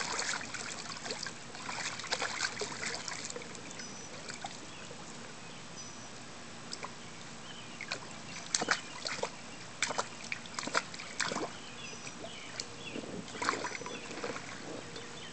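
Water splashing and sloshing in a small inflatable kiddie pool as a toddler moves about in it. The splashes come in irregular clusters during the first few seconds and again in the second half.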